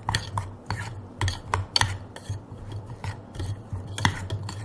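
A spoon stirring chopped raw plantain with ground pepper, cumin and salt in a small stainless-steel pot, clinking against the metal in irregular taps, several a second.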